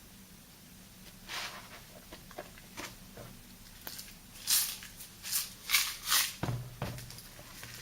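Thick soapy lather and sea-salt paste being worked by hand: a few soft crackles, then four short, hissy, squelching strokes about half a second apart, and a low thud near the end.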